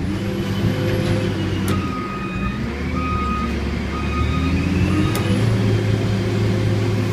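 Diesel engine of a container handler running under load as its hydraulic mast moves a container, the engine pitch rising and falling, with short high-pitched tones coming and going over it.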